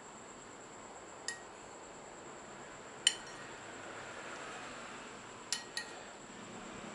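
Metal spoon clinking against a ceramic plate as it scoops up stir-fried food: four sharp chinks with a short ring, the loudest about three seconds in and a quick pair near the end.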